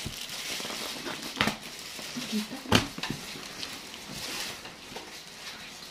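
Packing tape being peeled and ripped off a cardboard box and the cardboard flaps torn open: a steady rustling scrape, with two sharp snaps about a second and a half and three seconds in, the second the loudest.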